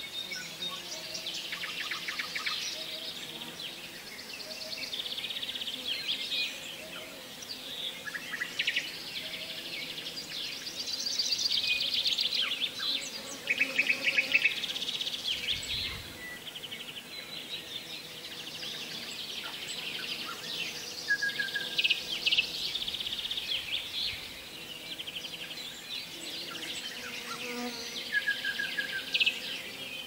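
Summer chorus of high, rapid buzzing trills in repeated phrases a second or two long, with a few short clear chirps: insects and birds.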